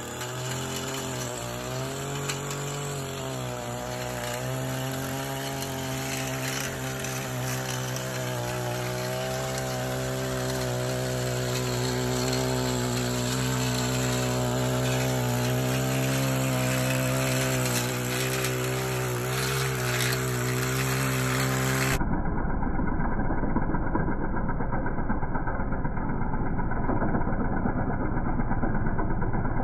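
Gas-powered stick blade edger running at high throttle as its blade cuts the lawn edge along a concrete driveway. The engine revs up near the start, then holds a steady pitch that wavers slightly under the cut; about two thirds of the way through the sound turns duller.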